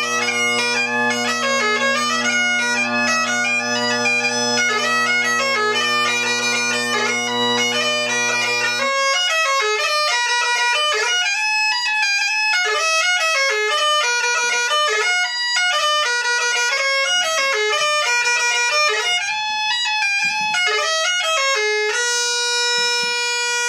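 Scottish Highland bagpipe playing a fast, ornamented melody on the chanter over a steady drone. About nine seconds in, the drone stops and the chanter melody carries on alone, ending on one long held note.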